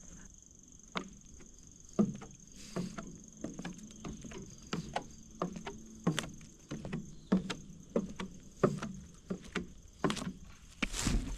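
Footsteps knocking on the wooden steps of a deer stand, irregular thuds about one or two a second, with a louder scuffing rustle near the end. A steady high insect buzz runs underneath.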